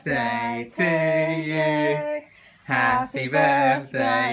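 An adult singing slowly: long held notes in short phrases of about half a second to a second, with brief breaks between them.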